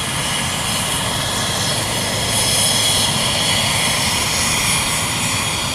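Airbus EC135 T3 helicopter running on the ground: a steady, loud high turbine whine from its twin turboshaft engines over dense rotor and exhaust noise.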